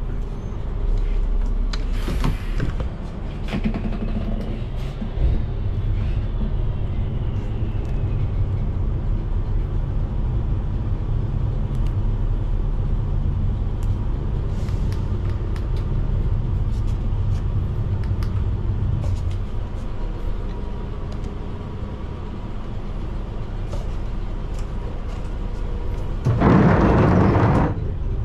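Fire truck's engine idling with a steady low rumble, with a short hiss about two seconds in and a louder, longer burst of noise near the end.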